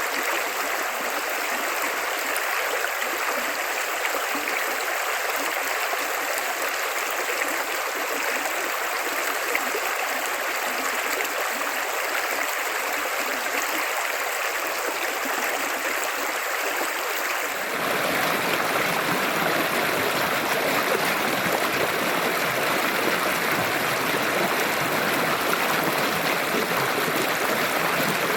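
River water flowing steadily, a continuous rushing stream. About two-thirds of the way through, the rush becomes fuller and a little louder.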